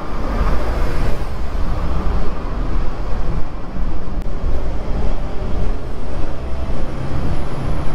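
Street traffic noise: a steady, loud, low rumble of road traffic.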